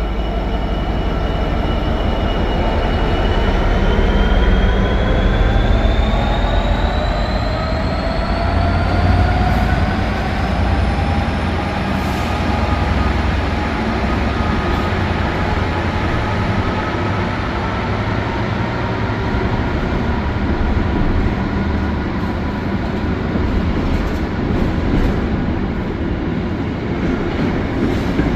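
Class 66 diesel freight locomotive hauling an intermodal container train, its two-stroke V12 engine working with a deep drone and a whine that climbs steadily in pitch for several seconds, then a steady rumble of the train running through.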